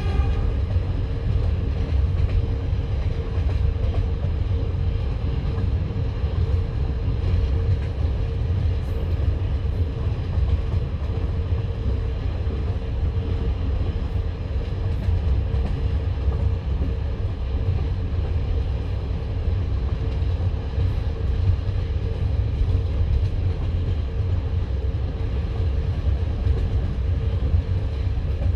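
Passenger railway carriage running along the line: a steady low rumble of the wheels on the track with a constant hum, heard from inside the carriage.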